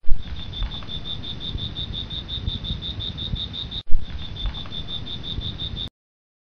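Crickets chirping as a night-time sound effect: a steady high trill pulsing about six times a second over a low rumble, with a thump at the start and another about four seconds in where it briefly breaks off. It cuts off suddenly near the end.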